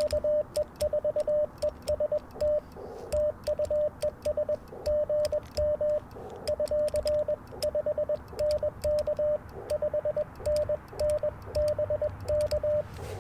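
Morse code (CW) tone from an Icom IC-705 transceiver, a single steady pitch keyed on and off in quick dits and dahs. Light sharp clicks run alongside the keying.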